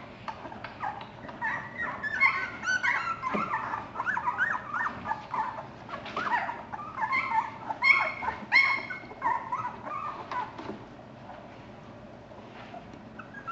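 A litter of newborn puppies crying, many short high squeaks and whimpers overlapping, as they crawl in search of their mother. The cries thin out and grow quieter about eleven seconds in.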